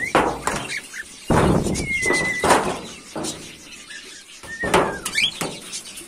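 Thin homemade aluminium-sheet bird cage tray being pushed into its slot under the cage, scraping in several harsh bursts with high squeals. The tray is jamming a little because its homemade fit is too tight.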